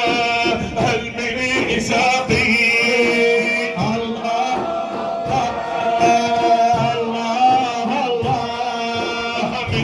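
Male voice singing Sufi devotional chant (inshad), holding long ornamented notes, with low drum beats now and then.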